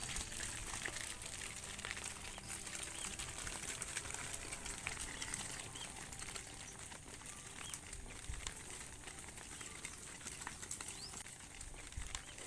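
Outdoor ambience with many scattered light clicks and taps and a few faint, short high chirps; no cow is mooing.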